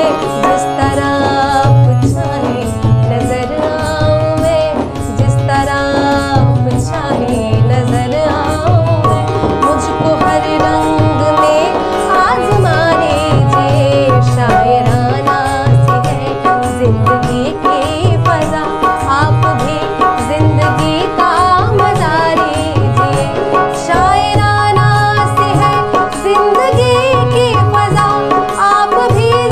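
Ghazal sung by a woman's voice, accompanied by harmonium and tabla, with the tabla's deep bass strokes keeping a steady rhythm.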